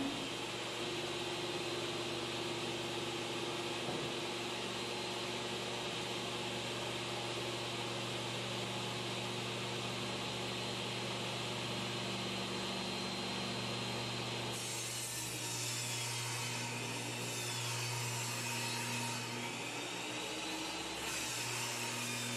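Benchtop table saw running steadily, its blade then cutting into a plywood sheet about two thirds through, with a short break before a second pass near the end: kerf cuts made to let the plywood bend.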